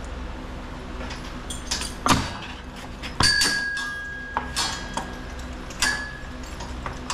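Metal harness hardware clinking and clanking a few times. One sharp clank about three seconds in rings on for about a second, and another rings briefly near the end, over a steady low hum.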